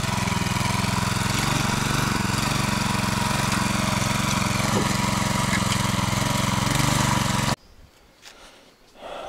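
Petrol engine of a RedVerg Muravey-4 walk-behind tractor running steadily under load while tilling unbroken ground with roots and stones. It stops abruptly about seven and a half seconds in.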